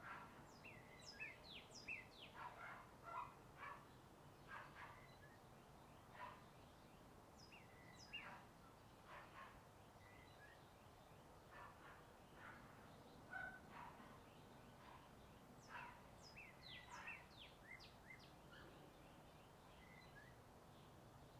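Birds chirping in the morning, many short calls and quick falling whistles coming again and again, over a faint steady hum of distant highway traffic.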